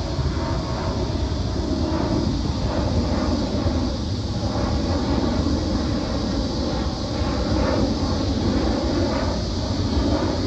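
Twin-engine jet airliner climbing out after takeoff, its engine noise a steady, loud rumble.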